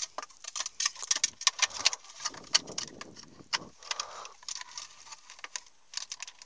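Small plastic clicks and rattles of a wiring-harness connector and its loose wires being worked into the socket at the back of a car's climate control panel, with a stretch of rustling handling noise partway through.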